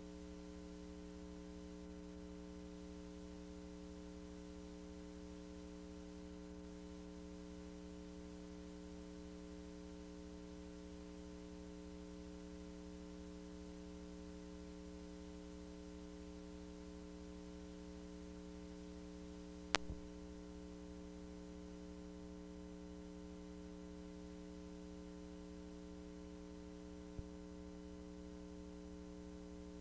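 Faint steady electrical hum, with no other sound over it, from a blank stretch of videotape. There is one sharp click about two-thirds of the way through and a much fainter one near the end.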